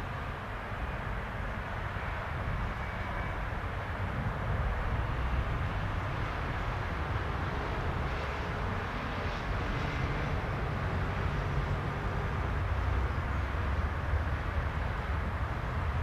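ATR 72-600 turboprop airliner on final approach, its two turboprop engines a steady distant drone that grows a little louder as it nears, over a low rumble.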